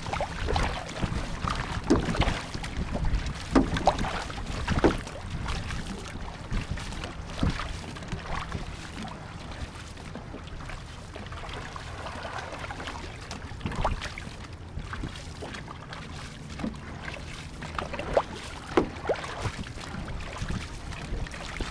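Canoe paddle strokes in calm water, each a short splash and swirl, about one a second at first, sparser in the middle and coming quickly again near the end, over a steady low rumble.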